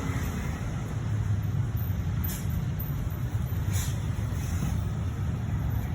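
BMW E36 rolling with a steady running noise and a rubbing sound from a rear wheel: the brake disc scraping, which the owner puts down to newly fitted pads and discs not yet worn in to each other.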